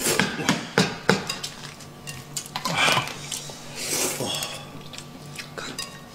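Eating sounds: noodles slurped from a bowl of soup, with many sharp clicks of chopsticks and tableware against dishes, the loudest in the first second or so.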